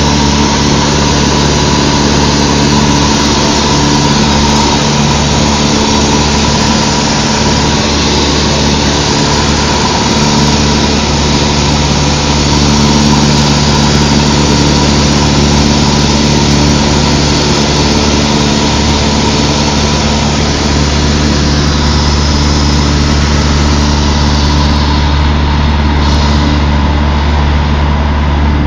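Cessna 152's four-cylinder Lycoming piston engine and propeller droning at a steady power setting in flight, heard loud inside the small cabin.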